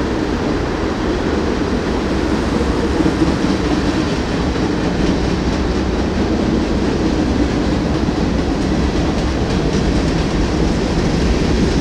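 Freight train cars rolling past, a string of tank cars and covered hoppers, their wheels on the rails making a steady rumble.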